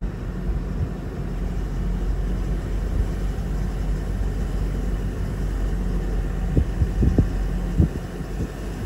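A car running with a steady low rumble, heard from inside the cabin, with a few short knocks about six to eight seconds in.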